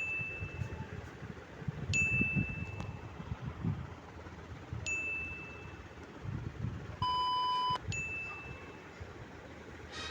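A 'ding' sound effect: a bright, high bell-like ding struck four times, about every two to three seconds, each ringing briefly. A short steady beep sounds once, about seven seconds in.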